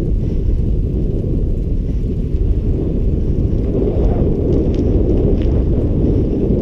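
Wind buffeting a GoPro's microphone while riding a bicycle at speed: a loud, steady low rumble.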